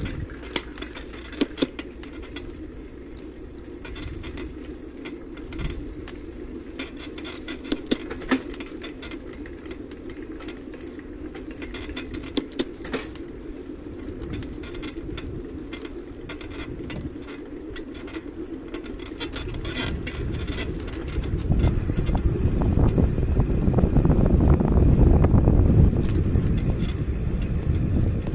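Ride on a small vehicle: a steady hum with scattered rattling clicks over bumps, then a loud low rumble that swells up about two-thirds of the way through and stays to the end.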